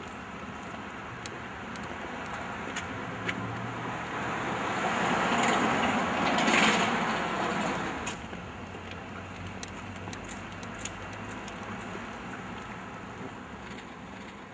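A car driving past on the street: its noise rises, peaks about six seconds in and fades away about two seconds later, over steady street background noise with scattered light clicks.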